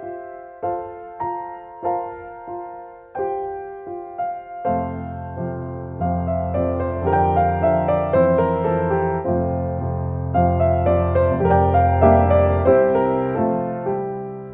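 Piano music: sparse repeated chords for the first few seconds, then a fuller passage with a sustained bass underneath.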